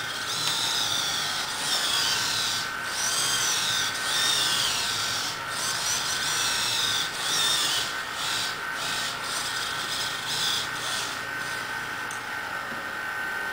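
Servo motors in a 3D-printed InMoov robot's abdomen whining as they drive its worm gears to move the torso. The whine comes in short strokes that rise and fall in pitch, busiest in the first half, over a steady high hum.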